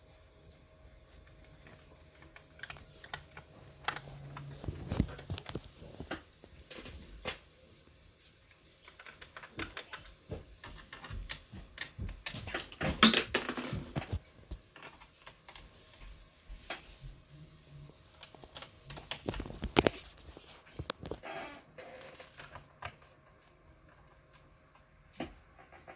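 Irregular small clicks, taps and scrapes of a screwdriver working the screws out of a laptop's bottom cover, with a few louder knocks of the laptop or tools being handled.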